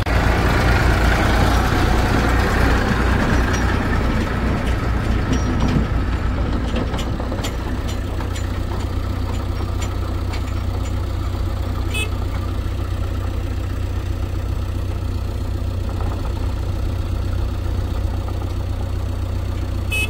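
Heavy diesel engine running with a deep, steady hum. It is louder and busier for the first few seconds, then settles to a steadier run, with a few faint clicks and ticks along the way.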